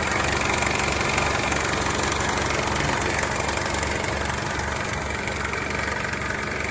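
Honda CR-V's K24 2.4-litre four-cylinder engine idling steadily with a rattle, a noise traced to a worn-out AC compressor clutch.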